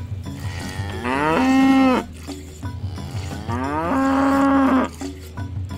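Cow mooing twice, each moo about a second long, rising in pitch and then held steady, over background music with a steady beat.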